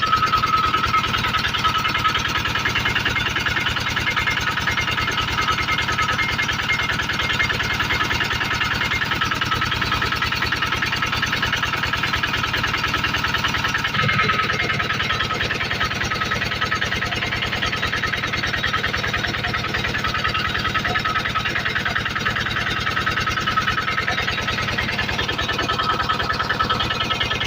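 Generator engine running steadily at a constant speed, with a slight shift in its sound about halfway through.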